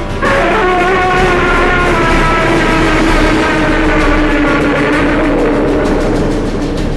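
Dramatic battle music: a heavy, distorted sustained chord comes in sharply at the start and slowly sags in pitch over a dense low rumble.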